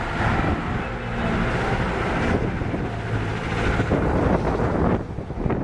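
Street traffic driving past at close range: car engines and an old pickup truck going by, with some wind noise on the microphone.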